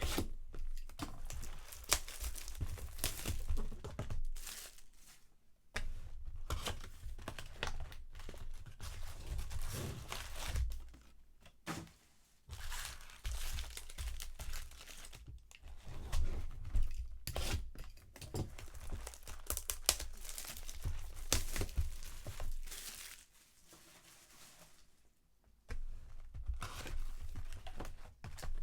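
Plastic card-box and pack wrapping being torn open and crinkled by hand, in irregular crackling bursts with a quieter pause near the end.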